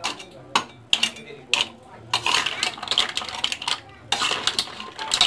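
Green mussels in their shells being stirred in a metal pot, shells clattering against each other and the pot. A few separate knocks come first, then about two seconds in a busy run of clatter.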